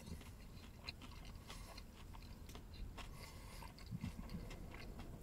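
Faint chewing of a mouthful of bacon cheeseburger, with scattered small mouth clicks and crunches from the crispy bacon.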